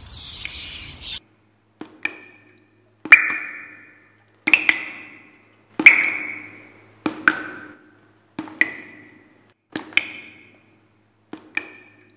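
Small birds chirping over wind noise, cut off about a second in. Then an outro sound effect: a run of sharp ringing plinks, roughly one every second and a half, some doubled, each fading quickly.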